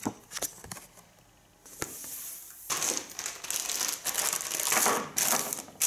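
A few light clicks, then from about three seconds in a clear plastic bag crinkling loudly as it is handled and turned over.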